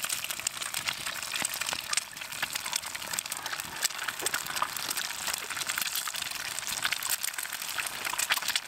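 Eggs sizzling in hot fat in a cast-iron skillet over a campfire: a steady crackling hiss thick with fine pops and spits.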